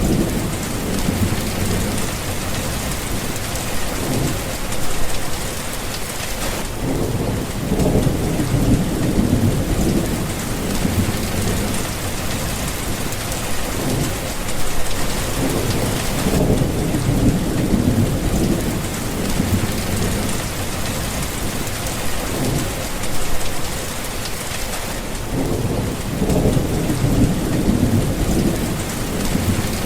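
Heavy, steady rain hissing, with thunder rumbling low again and again in long rolling swells.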